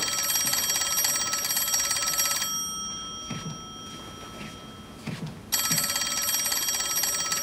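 Dial telephone's bell ringing with a fast metallic rattle. One ring stops about two and a half seconds in, and after a pause of about three seconds a second ring starts.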